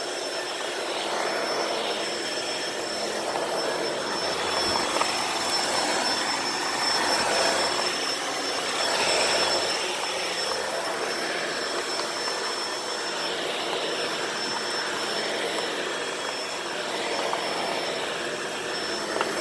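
Shark Rotator Powered Lift-Away upright vacuum running steadily over low carpet with its brushroll spinning: a constant rush of suction with a steady high motor whine.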